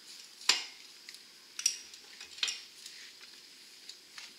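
Steel axle shaft and U-joint clinking against a bench vise as they are turned over and repositioned: three sharper metallic clinks about half a second, a second and a half and two and a half seconds in, with lighter taps between.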